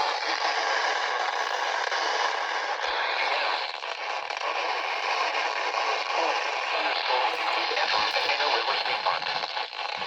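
Steady hiss of radio static from a radio receiver, cut off below and above as on a narrow broadcast channel, with faint traces of the broadcast voice under it near the end.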